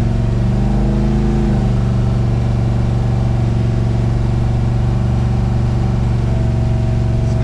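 Car engine running steadily, with a slight drop in pitch about a second and a half in.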